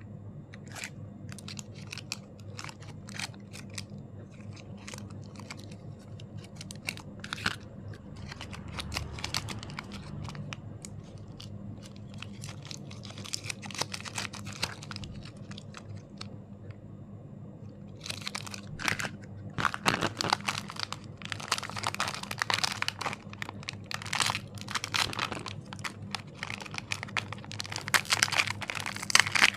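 Handling of a surprise egg's packaging: scattered light clicks and crinkles at first, then, from about two-thirds of the way in, a long stretch of dense crinkling and tearing of a wrapper.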